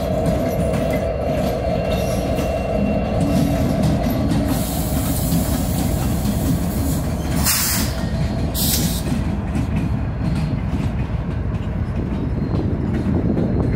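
Norfolk Southern freight train rolling past, a steady loud rumble of steel wheels on rail with some clickety-clack. Two short hissing bursts come about two-thirds of the way through.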